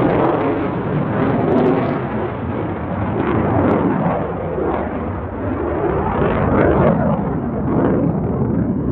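Jet noise from a CF-18 Hornet's twin General Electric F404 turbofans as it flies overhead: a loud, rough rumble that swells and fades in uneven waves.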